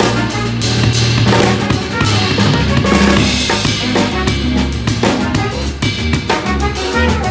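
Live band music led by a drum kit played with sticks: snare and bass drum hits with ride and crash cymbals (Meinl ride), over held bass notes and other instruments.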